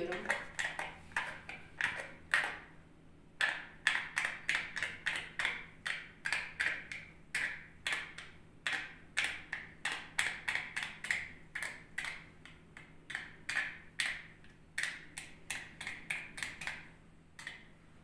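Aluminium foil stretched over a hookah bowl being pierced with a pointed pick: a quick irregular run of sharp little pops and crinkles, about three or four a second, with a short pause about three seconds in.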